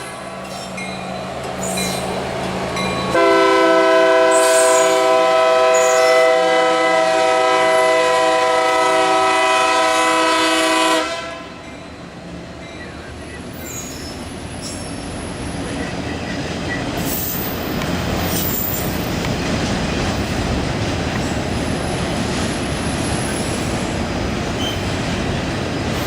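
A Union Pacific SD70M diesel locomotive approaches with its engine droning, then sounds its multi-chime air horn in one long blast of about eight seconds. After the horn cuts off, the rolling noise of the train's wheels on the rails builds steadily as the autorack cars pass.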